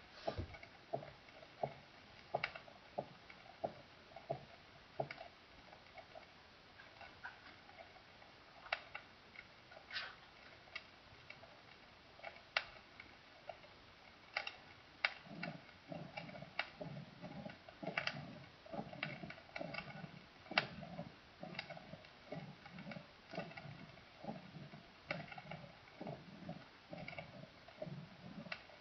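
Recorded heart sounds heard through a stethoscope: a steady rhythm of short beats, with deeper thumps joining about halfway through and scattered sharp clicks over the top.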